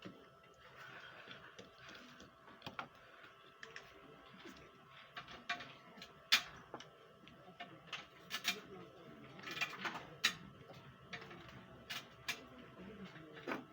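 Scattered light clicks and taps at irregular intervals, from small tools and parts being handled during electronics repair, over a faint steady tone.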